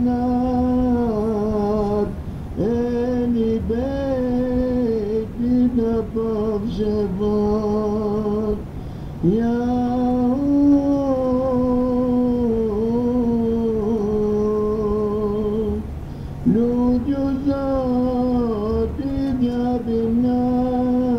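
An ilahi, a Sufi devotional hymn, sung in long drawn-out phrases. A single melodic line holds sustained notes with slight wavers, and rises into each phrase after a short breath, about every seven seconds.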